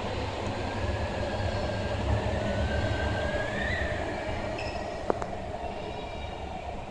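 MTR Tung Chung Line A-train (Adtranz-CAF electric multiple unit) pulling out and accelerating away behind the platform screen doors. A steady low rumble runs under a whine that rises in pitch over the first few seconds. There is a single sharp click about five seconds in, and the rumble eases slightly near the end as the train clears the platform.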